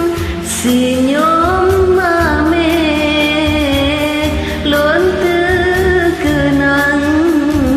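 A single voice singing a held, sliding melody from an Acehnese song over a karaoke backing track with bass and a steady beat.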